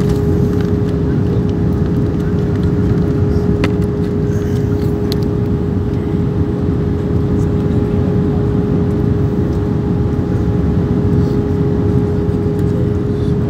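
Airliner cabin noise during the descent: a steady rush of jet engines and airflow with a constant droning tone.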